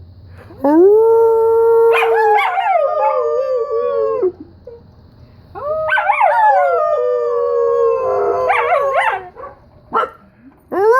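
Dog howling: two long, drawn-out howls, each held steady and then wavering and falling off, with a short break between them and a third howl starting near the end.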